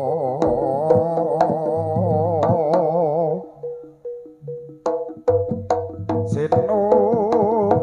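Live jaranan horse-dance music: drum strokes under a held melody with a strong wavering vibrato. The melody drops out for about two seconds in the middle, leaving a few sparse struck notes, then comes back with the drums.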